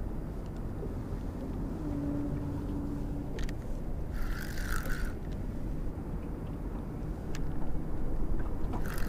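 Steady low rumble of the drifting boat's surroundings, with a spinning fishing reel whirring briefly about four seconds in and again near the end as line is worked in.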